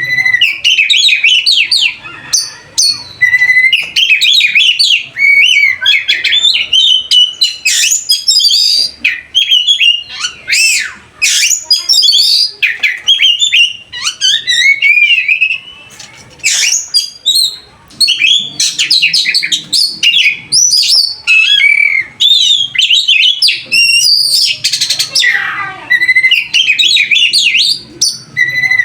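Pet bird chirping and chattering almost without pause: a fast, loud run of short whistled notes and chirps sliding up and down in pitch.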